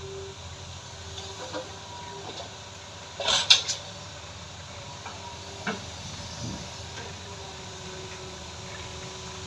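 Hydraulic excavator running while it loads a dump truck with soil: a steady low engine drone with a faint steady whine. About three seconds in, a short burst of loud sharp clanks comes while the bucket is over the truck bed, followed by a few lighter knocks.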